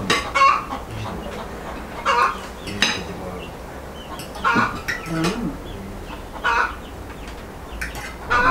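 Chickens clucking, a short call about every two seconds, with forks clinking on plates between the calls.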